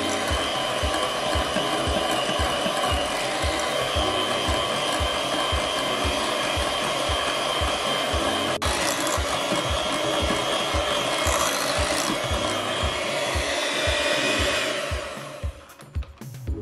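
Handheld electric mixer running steadily, its beaters whipping cream cheese in a glass bowl; the motor winds down and stops near the end.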